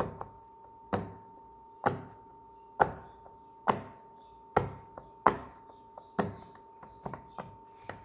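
Silicone pop-it fidget toy having its bubbles pushed through one at a time by a finger: a soft pop about once a second, then quicker, fainter pops near the end. This is the toy's quieter side.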